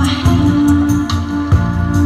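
Live flute melody in long held notes over an amplified backing track with a steady low bass pulse.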